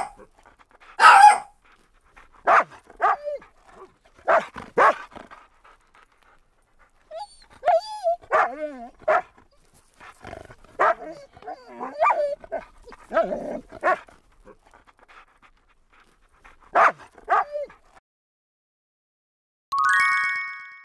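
Dogs barking and yipping in short, separate bursts every second or two, some with a whining, sliding pitch. A short chime sounds near the end.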